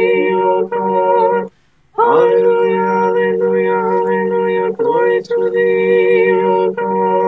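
A cappella Orthodox liturgical chant by a few voices, holding steady chords in long sung phrases. Each phrase starts with a short upward slide, and there is a brief pause for breath about a second and a half in.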